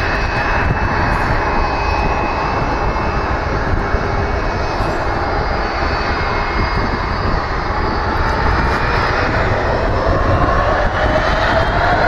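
Boeing 757-200 freighter's Rolls-Royce RB211-535 turbofans running at low thrust while the jet taxis, a loud steady jet rush with a thin whine. Near the end the whine rises in pitch as the engines spool up.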